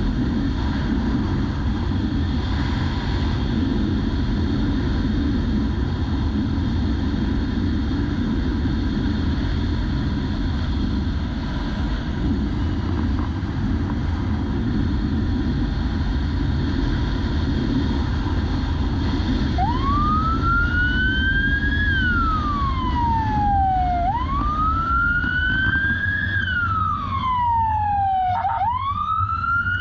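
Wind rush and engine noise of a police motorcycle riding at speed. About two-thirds of the way through, a siren starts wailing, rising and falling in slow sweeps of a few seconds each.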